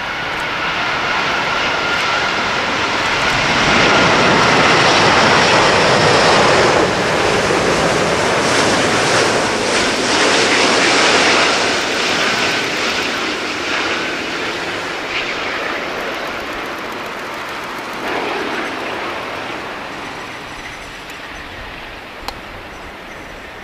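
Airbus A380-800's four Rolls-Royce Trent 900 turbofans on landing approach, a dense jet roar with a high fan whine that builds as the airliner passes close, peaks for several seconds, then slowly fades as it lands and rolls away. A brief click near the end.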